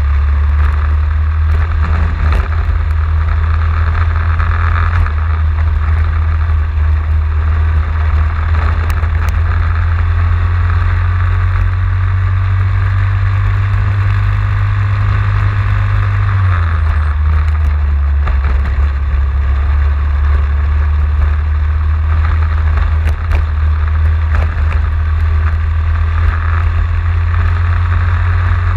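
Racing kart's engine running hard at speed through a lap, heard from an onboard camera, with a loud steady low rumble throughout.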